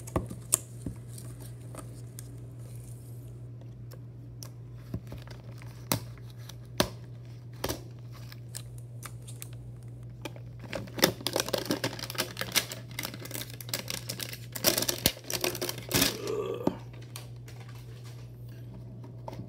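A cardboard trading-card box and its plastic wrap being cut and torn open by hand: scattered light clicks and taps, then a few seconds of dense crinkling and tearing about halfway through. A steady low hum runs underneath.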